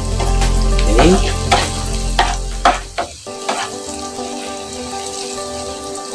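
Minced garlic sizzling in hot oil and butter in a non-stick frying pan, stirred with a wooden spatula that clicks and scrapes against the pan every half-second or so. A low hum under it cuts off about halfway through.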